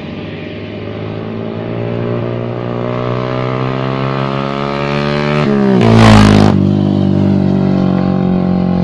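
Yamaha Sniper 135 single-cylinder motorcycle engine running through an open OPBR aftermarket exhaust pipe. The revs climb slowly, then a sharp throttle blip about six seconds in makes the loudest moment, and the engine settles back to a steady lower speed.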